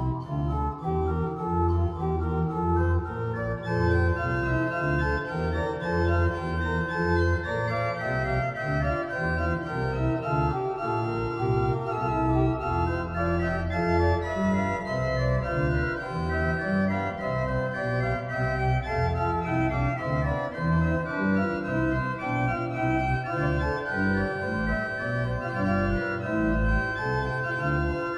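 Organ playing a three-voice trio in one flat: two busy interweaving upper lines in quick notes over a steadily moving pedal bass.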